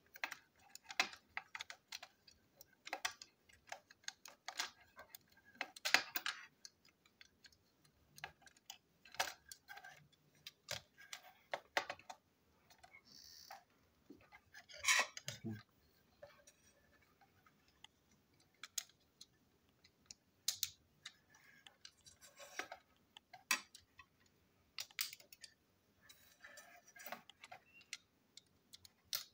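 Small plastic toy engine parts clicking and tapping as they are handled and fitted together by hand, in irregular light clicks with a louder knock about halfway through.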